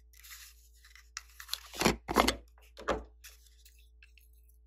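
Hard plastic capsule container being handled and its lid worked by hand: rubbing and scraping plastic with a few dull thunks near the middle.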